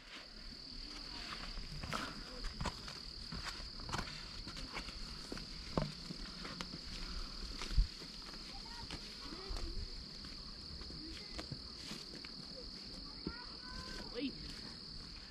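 Insects droning outdoors: one steady, high-pitched tone that never breaks, with scattered light clicks and knocks over it.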